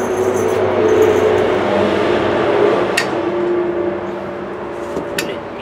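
A steady mechanical hum whose tones drift slightly in pitch, with two sharp metallic clicks, about three seconds and five seconds in, as steel wire is worked through the holes of a steel wheel rim.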